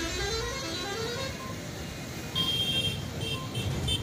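Traffic noise with a low engine rumble. A vehicle horn plays a tune of stepped notes that fades out in the first second or so; from about two and a half seconds in, a high beeping repeats several times.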